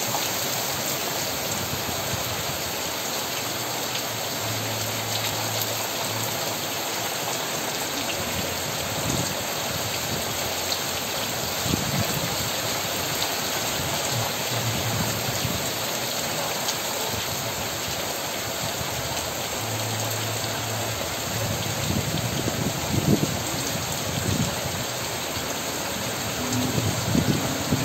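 Heavy rain falling steadily on foliage and surfaces, a constant even hiss. Some louder low bumps come in over the last few seconds.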